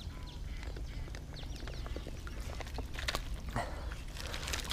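Shoes scuffing on sandbags and long grass rustling as someone scrambles up a steep grassy bank, with a couple of sharper scuffs a little after three seconds in, over a low steady rumble.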